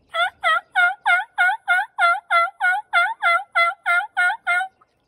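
Diaphragm (mouth) turkey call blown in a steady run of about fifteen loud, hen-like yelps at roughly three a second, stopping abruptly.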